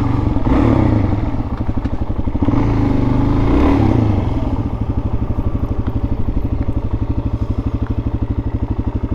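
Dirt bike engine revving up and back down twice, the second rev longer, then settling to a steady, evenly pulsing idle.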